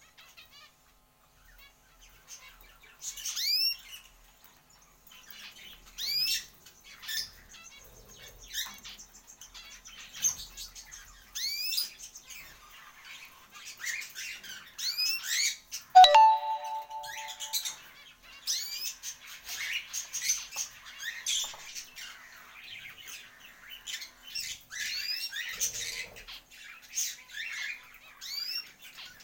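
Pet birds calling over and over with short, rising chirps and squawks. About halfway through, a sharp knock is followed by a steady lower tone lasting a second or two.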